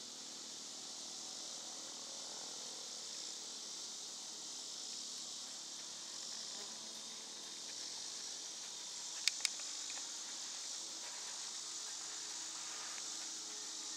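Steady high-pitched chorus of insects shrilling throughout, with two sharp clicks in quick succession about nine seconds in.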